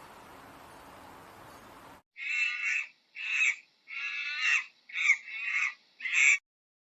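A bird giving about six loud, harsh calls in quick succession, each well under a second long, after a couple of seconds of faint background hiss.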